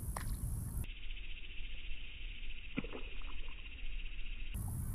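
Steady high buzz of insects in the grass, with a couple of faint clicks.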